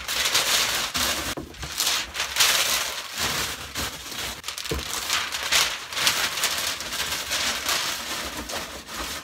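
Sheets of packing paper being scrunched up and stuffed into a cardboard box as void fill, a continuous crackling rustle.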